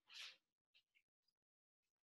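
Near silence: room tone, with one brief faint noise just after the start.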